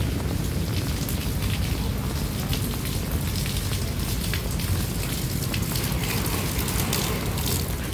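Steady rain falling, an even hiss with scattered sharp drip and tap sounds, over a constant low rumble.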